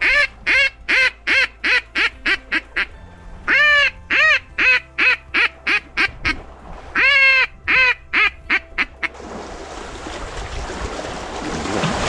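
Mallard duck call (Zink) blown in three descending runs of quacks, each opening with long loud quacks and quickening into short ones: the hen mallard's greeting call, used to pull passing mallards in to the decoys. The calling stops about nine seconds in, leaving a steady hiss.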